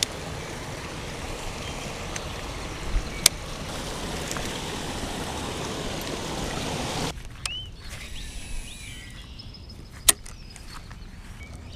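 Steady rush of water from a small waterfall spilling over pond rocks, cutting off abruptly about seven seconds in. After it, quieter outdoor air with a few sharp clicks, one loud click near the end.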